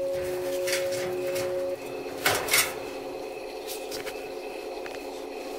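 Metal parts of an electric clothes dryer's heater assembly being handled: clicks, rustling and scraping, with two loud scrapes near the middle. Under it runs a steady hum, part of which cuts off about a third of the way in.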